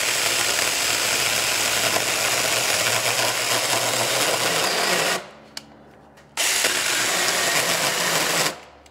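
TomyVic 21-volt cordless mini chainsaw running and cutting into a stack of four 2x4s. The saw cuts out about five seconds in, starts again a second later, and stops again near the end; it is stalling under the load of the thick cut, which the user takes for a binding clutch.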